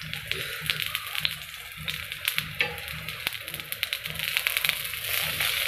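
Ghee sizzling and crackling under a makki ka paratha (corn-flour flatbread) on a hot iron tawa as it is spread with a metal spatula, with many small pops, growing louder toward the end.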